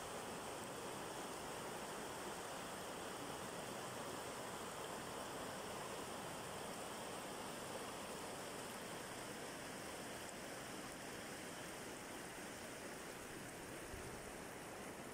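Shallow river running over stones and pebbles in riffles: a steady rushing, babbling flow.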